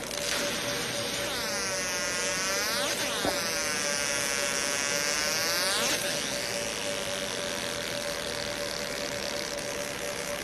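Laser engraver marking a black tumbler: a steady hum, with a high whine from the scanning mirrors that swoops up and down in pitch as they trace the design, from about a second and a half in until about six seconds in.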